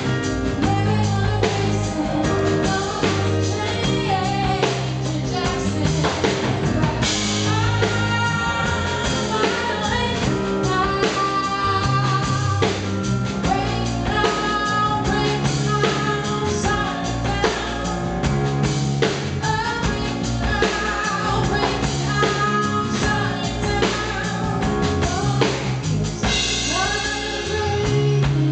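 A live band performs a song, with a woman singing lead into a close microphone over drums and band accompaniment.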